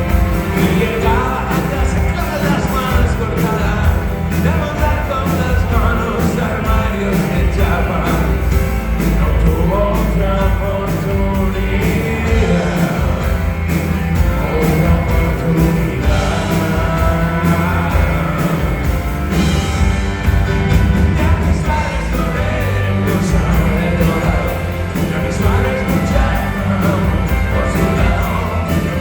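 Rock band playing with a singer over the drums and guitars, loud and continuous.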